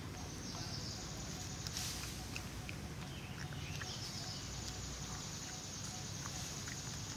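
Outdoor woodland ambience: a high, steady hiss of insects that fades out about two and a half seconds in and returns about four seconds in, over a low rumble, with a few faint clicks.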